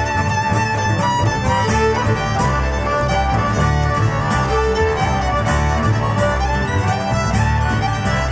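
Folk band playing an instrumental tune: fiddle carrying the melody over diatonic accordion, rhythmic acoustic guitar and plucked double bass.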